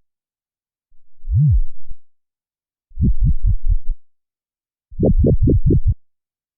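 Three short, low sound-effect samples previewed one after another with silence between them: first a single low tone that rises and falls back, then two clips of rapid low pulses, about five beats each.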